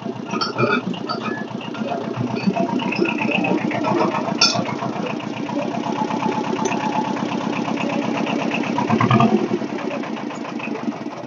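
Small Kubota machine's engine running hard as it pushes into and over a Chevy Avalanche, with sharp clanks of metal about four and a half seconds in.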